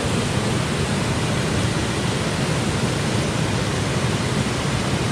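Steady rush of water pouring over a small waterfall, a chute of rapids, heard up close.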